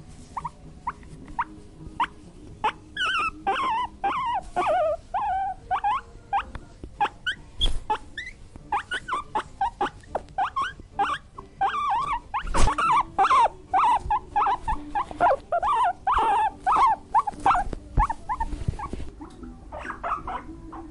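Pigs squealing: many short, high calls in quick succession, coming thick and fast from about three seconds in.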